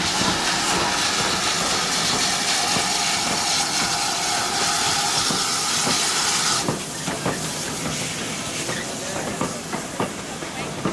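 Steam locomotive letting off steam in a loud, steady hiss that cuts off suddenly about six and a half seconds in. Irregular clicks and knocks follow.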